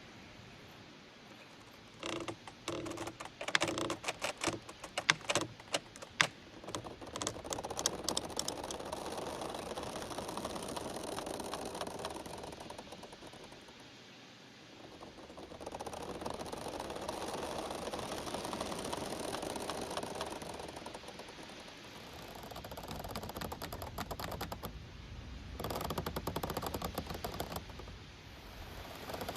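Giant bamboo stalks creaking and clacking against each other as they sway in the wind, with a thick cluster of sharp creaks and knocks in the first several seconds. After that, the wind rustles through the bamboo in three slow swells that rise and fall.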